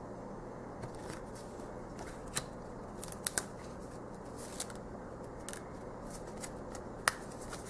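Tarot cards being handled and laid on the stack: a handful of light, scattered clicks and taps over a steady faint room hum.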